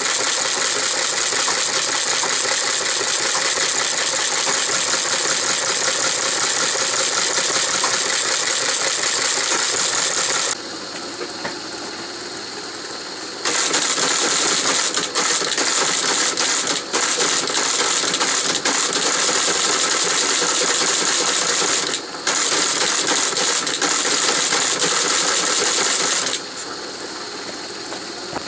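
1939 Lorenz T36Lo teleprinter running: a fast, dense mechanical clatter of its printing mechanism. The clatter gives way twice to the quieter steady run of the machine, for a few seconds about a third of the way in and again near the end, with a short break in between.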